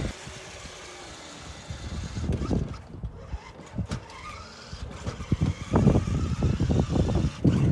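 A 12-volt electric ride-on toy truck driving across concrete with a small steel flatbed trailer behind it: an irregular low rumbling and rattling that grows louder and busier about halfway through.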